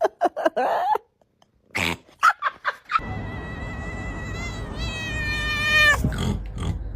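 A cat making a rapid run of short calls, then after a short pause a single long, high-pitched cry held steady for about three seconds that wavers near the end.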